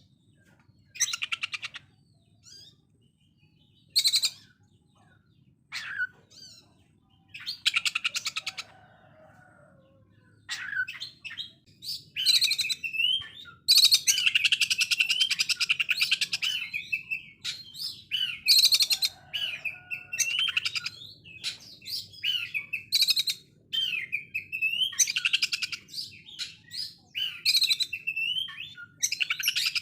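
Oriental magpie-robin (kacer) singing fast, harsh trills of rapidly repeated notes, like a sewing machine. It comes in short separate bursts at first, then runs almost without a break, with gliding whistles among the trills, from about a third of the way in. This is the rough, agitated 'konslet' song that keepers play to provoke rival birds.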